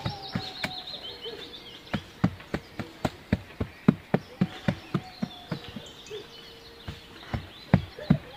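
Irregular sharp scrapes and knocks, about two to three a second, of a hand digging and scraping at dry soil and leaf litter. A faint steady buzzing runs underneath.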